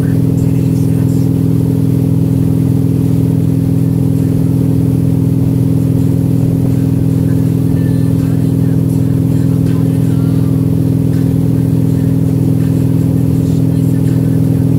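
Tow boat's engine running steadily at speed, a constant even drone that holds the same pitch throughout.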